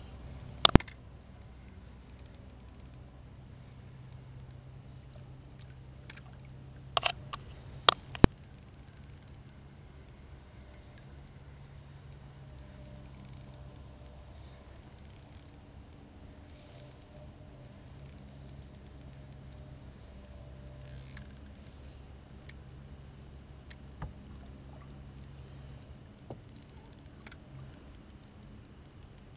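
Kayak fishing handling noise: a sharp knock about a second in and a cluster of three sharp knocks around seven to eight seconds in, then faint intermittent ticking of a spinning reel being cranked, over a low steady hum.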